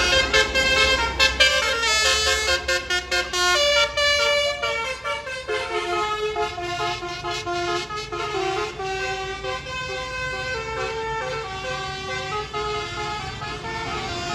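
Bus basuri musical horn (telolet) playing a tune in multi-tone notes: quick changing notes at first, then longer held ones. A bus engine rumbles under it for the first few seconds.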